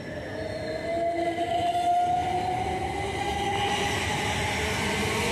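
c2c Class 357 electric multiple unit pulling out and gathering speed past the platform: a rumble of wheels on the rails with a whine that rises in pitch as it accelerates, getting louder about a second in.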